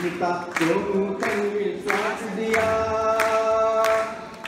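A group of voices singing a devotional chant together, with a long held note in the second half.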